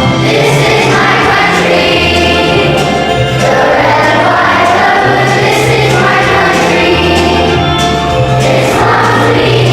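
A choir singing a song over instrumental accompaniment, with sustained bass notes that change every second or two.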